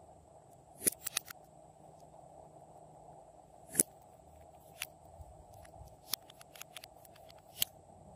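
Small sharp plastic clicks and taps from handling lip-gloss tubes and their applicator wands, over a faint steady background hiss. Three clicks come quickly about a second in, and single clicks follow every second or so.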